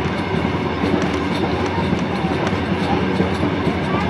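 Heritage passenger carriage rolling along narrow-gauge track, its wheels rumbling steadily and clicking over the rail joints, heard from an open carriage window.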